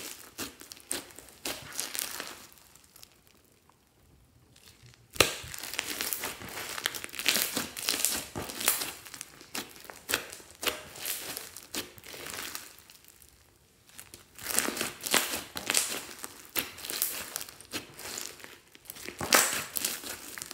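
Hands squeezing, stretching and pulling apart fluffy slime packed with foam beads, giving irregular squishing, crackling handling sounds. These pause briefly about three seconds in and again around thirteen seconds, and there is a sharp crack as they resume at about five seconds.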